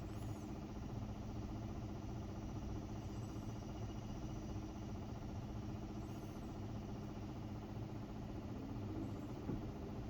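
Samsung WA50R5200AW top-load washing machine running with a steady motor hum, its drum turning with a single pair of pants, a badly unbalanced load. A small knock near the end.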